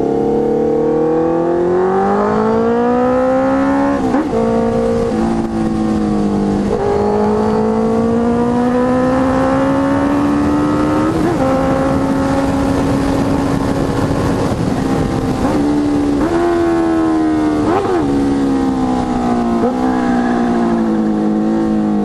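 Honda CB650F inline-four engine through a Jeskap GP2 R full exhaust, accelerating through the gears: the pitch climbs and drops at each of several upshifts, then falls near the end as the bike slows.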